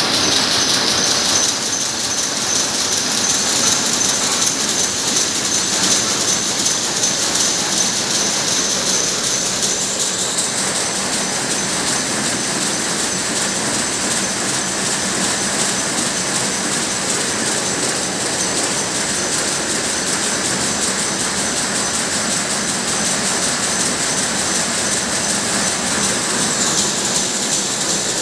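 Jacquard rapier loom weaving at speed: a loud, steady, fast mechanical clatter that runs without a break. The top end brightens about ten seconds in.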